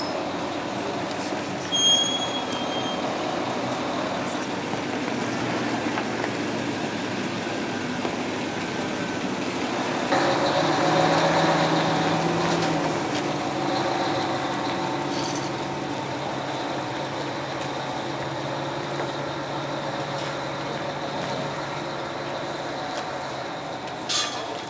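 A large mobile crane's diesel engine runs steadily, growing louder for a few seconds about ten seconds in. A short high squeal comes about two seconds in, and a sharp click near the end.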